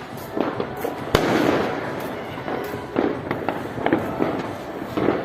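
Fireworks going off: a loud bang about a second in, followed by crackling, then a run of sharp cracks and pops.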